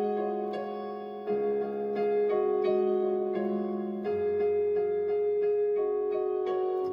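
Keyboard playing slow, held chords as the song's instrumental intro, changing chord every couple of seconds, with a low bass note joining about four seconds in.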